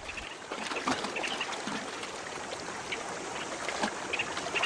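River water splashing and lapping, stirred by a newborn hippopotamus calf swimming beside its mother. The sound is a steady wash with small splashes throughout.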